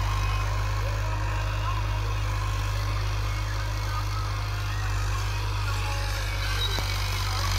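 Farm tractor's diesel engine running at a steady pitch under load as it pulls a rotavator across a field.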